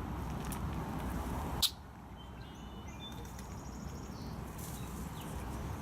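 A few faint, short, high chirps of a small bird, starting about two seconds in, over a steady low outdoor rumble. A single sharp click about a second and a half in is the loudest sound.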